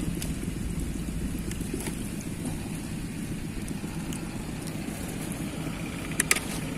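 Steady low rumble of wind buffeting the microphone, with a few faint crackles of dry twigs and two sharp clicks about six seconds in.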